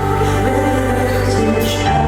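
Live pop ballad played through a concert hall's sound system, in a short instrumental stretch between sung lines: a long held bass note under sustained chords.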